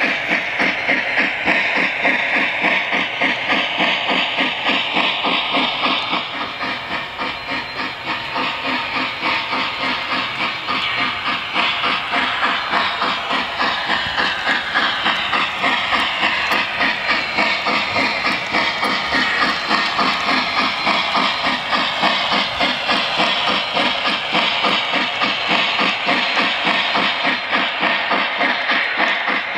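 Lionel O gauge Pere Marquette Berkshire model steam locomotive running, its RailSounds steam sound system giving steady rhythmic chuffing with a hiss over it.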